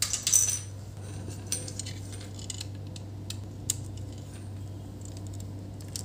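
Small clicks and taps of a thin flat ribbon cable being handled and fitted into the power-switch board connector on a laptop motherboard, with a brief rustle at the start and scattered light ticks after, over a steady low hum.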